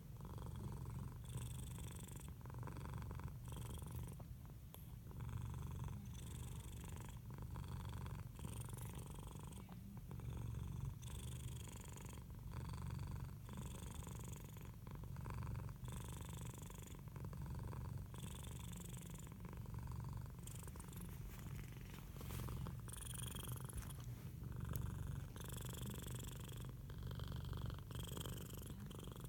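Domestic cat purring continuously, a rumbling 'helicopter' purr that pulses in alternating stretches with its breathing in and out.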